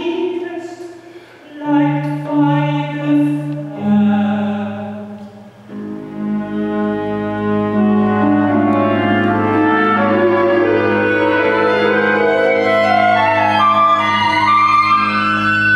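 Live contemporary opera music from a small orchestra: a sung phrase in the first few seconds, then low held notes from about four seconds in, with a thickening chord of sustained instrumental tones building above them.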